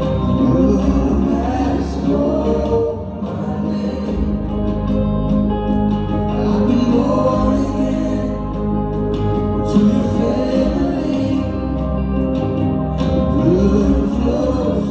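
Live worship band playing a slow song on acoustic guitar, electric guitars and bass, with singing over it.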